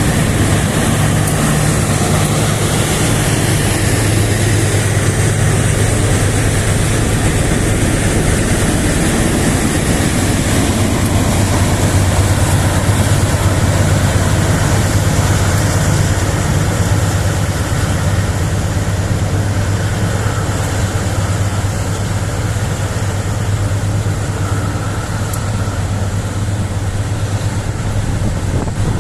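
Loaded bauxite freight train rolling past steadily, a continuous low rumble that eases slightly in the second half.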